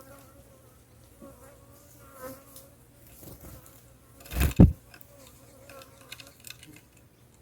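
A faint steady insect buzz, with a loud double thump about four and a half seconds in and a few light clicks near the end.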